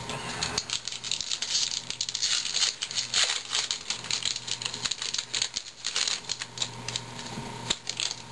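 A 2011 Topps baseball card pack's wrapper being torn open and crinkled as the cards are pulled out: a dense, irregular crackling and rustling that starts about half a second in and dies away near the end.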